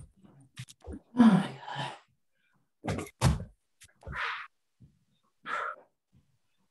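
Thuds of feet and hands landing on a rug-covered floor during quarter burpees, about six at an uneven pace, with hard breaths between them.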